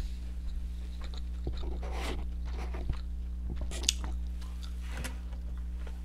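Close-up chewing and biting of crispy fried food (broiled frozen chicken nuggets and crinkle-cut fries), with irregular crunches, the loudest about two and four seconds in, over a steady low hum.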